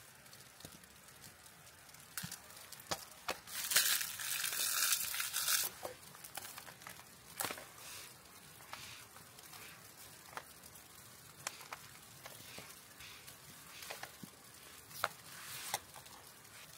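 A plastic wrapper crinkling and tearing for about two seconds as a block of kamaboko fish cake is unwrapped, followed by scattered light clicks and taps as it is sliced with a knife on a metal plate.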